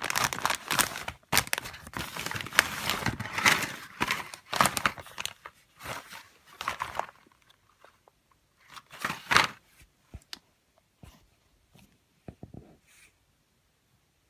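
Packaging being handled: dense rustling and crinkling for about seven seconds, another short burst around nine seconds in, then a few faint clicks.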